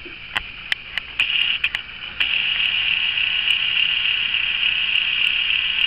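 Camcorder zoom motor whirring steadily as the lens zooms out, a high, even, hiss-like whir, preceded by a few small clicks in the first second or so.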